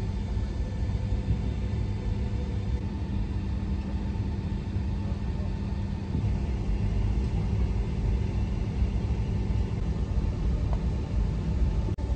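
Cabin noise inside a Boeing 757-200 taxiing to the gate after landing: a steady low rumble with the faint, even hum of the engines at idle.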